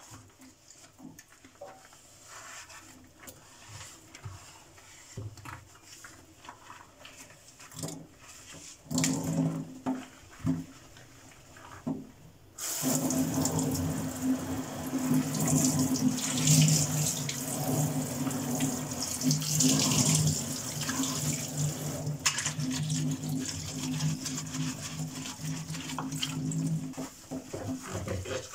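Scattered light knocks and handling clicks, then about halfway through a tap is turned on abruptly and water runs steadily into a sink with a low hum under the rush of water.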